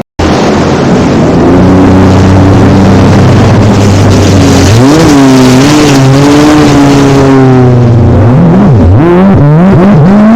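Jet ski engine running at a steady pitch, rising about halfway through, then revving up and down rapidly over and over near the end.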